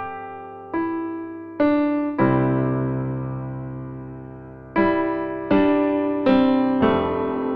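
Soft background piano music: single notes and a sustained chord, each struck and left to ring out.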